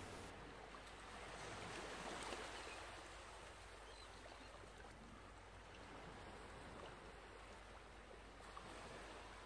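Near silence: a faint steady hiss, with soft rustling of a fabric pocket piece being turned and smoothed flat by hand, a little louder about two seconds in.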